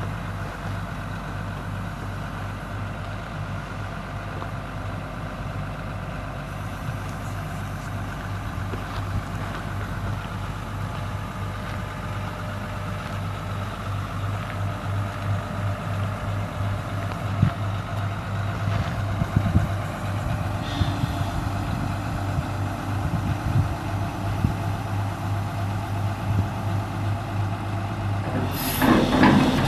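Kobelco SK330LC excavator's Mitsubishi 6D16 7.5-litre diesel running steadily, with a whine above the engine note as the boom and bucket are worked. The machine grows louder about halfway through, with a few knocks, and ends with a quick series of metallic clanks.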